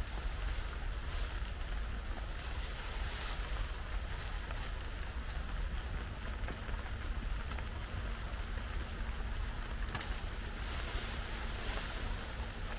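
Heavy rain falling steadily, swelling and easing every second or so, with a low wind rumble on the microphone.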